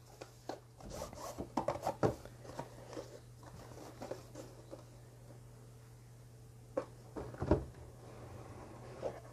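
Cardboard packaging being handled: a quick run of light rubs and taps in the first couple of seconds as the inner box slides out of its sleeve, a quieter stretch, then a few more taps and rubs about seven seconds in, over a faint low hum.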